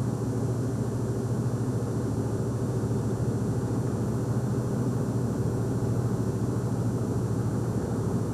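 Steady low drone of a car's engine and road noise, heard from inside the moving car.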